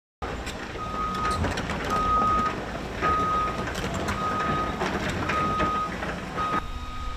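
Backup alarm of heavy construction equipment beeping steadily, six beeps about a second apart, over the running engine and scattered metallic clanks of demolition work.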